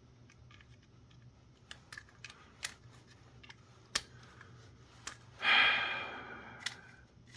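Small plastic camera parts being handled, with scattered light clicks and taps. About five and a half seconds in comes one louder, brief scraping rustle.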